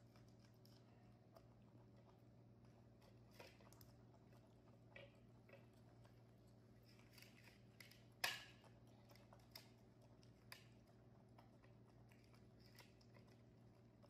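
Faint crunching and biting of baby monkeys gnawing boiled corn on the cob, with a few soft clicks, the sharpest about eight seconds in, over a faint steady hum.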